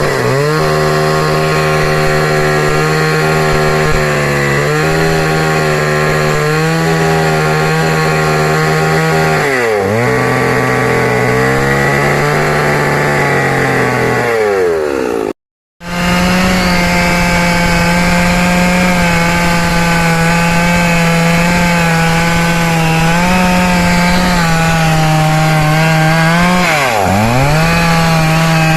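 STIHL chainsaw running at high speed while cutting into a tree. Its pitch dips sharply and climbs back a few times as the throttle is eased off and squeezed again. The sound drops out for a split second about halfway through, then resumes at full speed.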